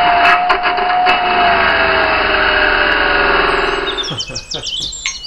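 Cordless angle grinder cutting into brickwork and mortar, a loud gritty rasp over a steady motor whine that sags slightly in pitch before the tool stops about four seconds in. Birds chirp after it stops.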